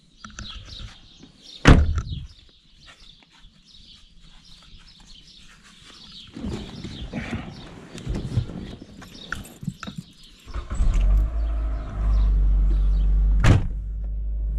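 A car door shuts with a slam about two seconds in, with birds chirping faintly behind. After some shuffling, the car's engine starts about ten seconds in and idles steadily, and a second door thump comes near the end.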